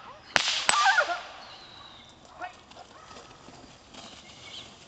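A whip cracked twice in quick succession, two sharp loud cracks in the first second, with a Groenendael (Belgian Shepherd) barking right after; then only faint rustling.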